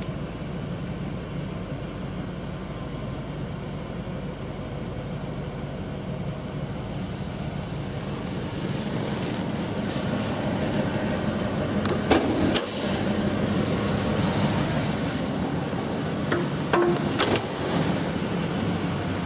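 Chevrolet 350 V8 idling steadily after a rev, with a few short sharp knocks and clicks about two-thirds of the way through and again near the end.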